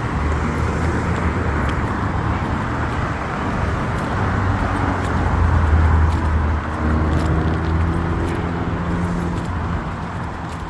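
City street traffic: cars passing with a steady road noise, and one vehicle's engine rumble swelling to its loudest about halfway through.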